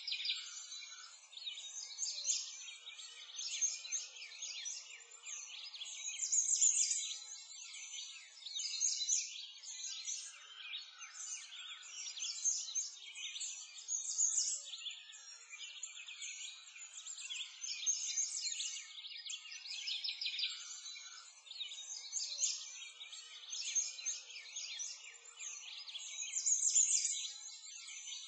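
A dense chorus of songbirds, many short chirps and trills overlapping, swelling and fading every couple of seconds.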